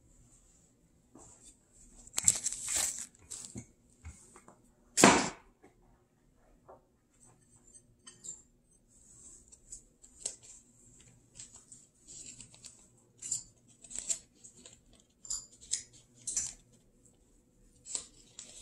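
A wooden rolling pin on pastry dough on a granite counter, then set down with one loud knock about five seconds in. After that comes a long run of soft, scattered crackles and ticks as pinches are sprinkled by hand from a bowl over the dough.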